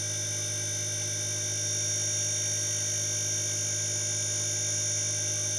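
Koppel 1 HP split inverter air conditioner running on test: a steady hum with several steady high-pitched whining tones.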